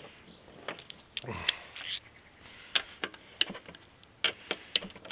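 Irregular sharp metal clicks and clinks of hand tools and hardware being worked on the motorcycle while its fuel tank is unbolted, about a dozen scattered knocks with no steady rhythm.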